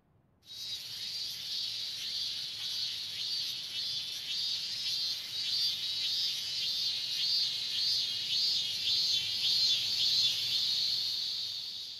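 Cicadas droning in a summer chorus, a high shrill sound that swells in a steady pulse about twice a second. It starts suddenly about half a second in and fades near the end.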